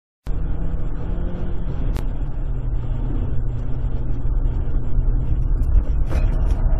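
Car engine and road noise as heard inside the cabin, a steady low drone that starts abruptly just after the beginning. A single sharp click about two seconds in.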